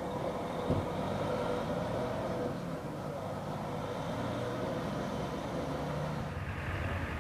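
Vehicle engine idling: a steady hum with a short knock less than a second in.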